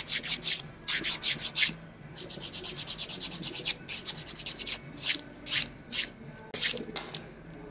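Hand-held nail file rasping across fingernails in repeated short strokes. A quick run of strokes comes a couple of seconds in, then slower single strokes that stop shortly before the end.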